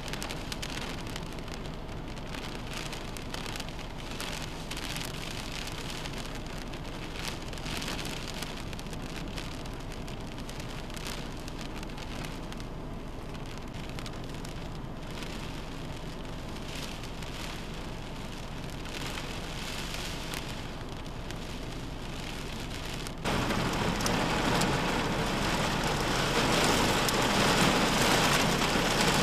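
Heavy rain and strong wind of a severe thunderstorm, a steady rushing hiss. Near the end it jumps abruptly louder to a heavier rush of wind-driven rain.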